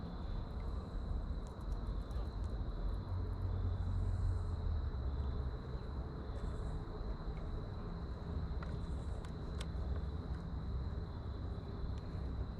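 Crickets trilling in a steady, high, unbroken chorus, over a low rumble and a few scattered faint clicks.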